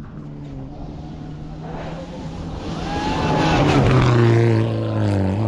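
Rally car engine at high revs, getting louder as the car approaches and peaking about four seconds in. Its pitch dips briefly near the end, then climbs again.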